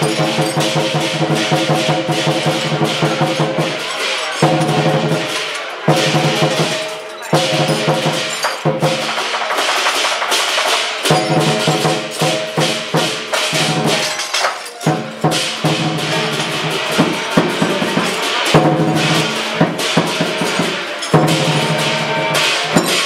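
Lion dance percussion: a large Chinese drum beaten in rapid strokes with cymbals clashing. A ringing metallic tone drops out briefly a few times, then comes back.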